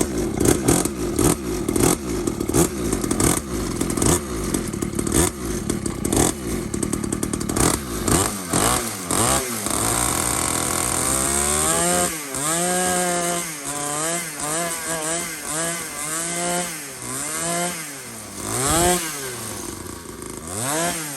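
Newly installed 49cc two-stroke dirt bike engine running close by, then from about halfway revving up and down over and over, its note rising and falling about once a second.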